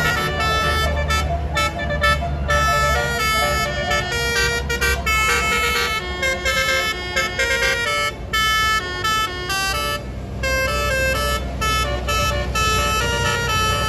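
Bus telolet horn of the Basuri type playing a tune, its tones stepping quickly from note to note with short breaks, over the low rumble of the bus engine.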